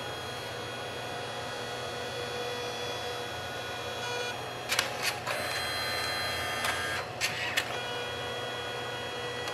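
Canon SELPHY CP-1500 dye-sublimation photo printer running mid-print: a steady motor whir with thin whining tones. A few sharp clicks come about halfway through and again later, as the paper shuttles out and back in between its colour passes.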